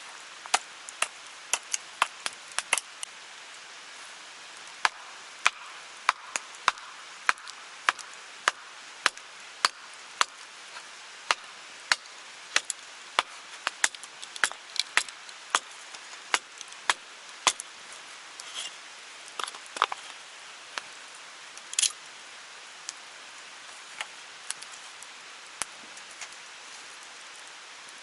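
A blade chopping a piece of cherry firewood into smoking chips: a series of sharp wooden chops, about one or two a second, thinning out toward the end. A steady rushing of stream water runs underneath.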